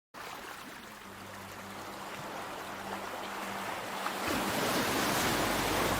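Ocean waves on a shore: a steady wash that grows louder, with a wave surging in about four seconds in. A faint low steady hum sits beneath it.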